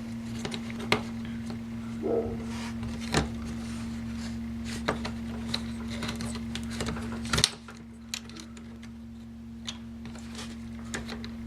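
Scattered light clicks and taps of laptop parts being handled during disassembly, the sharpest about seven and a half seconds in, over a steady hum that drops out at that moment.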